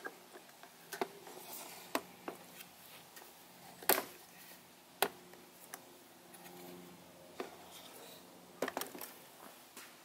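Windmere WDF 1200 12-inch oscillating table fan running with a faint steady hum, broken by irregular sharp plastic clicks and knocks as the fan is handled and turned on the wooden table, the loudest about four and five seconds in and a quick cluster near the end.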